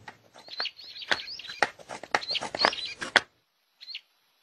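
Small birds chirping in a quick run of short rising chirps, stopping a little after three seconds, with one more brief chirp near four seconds.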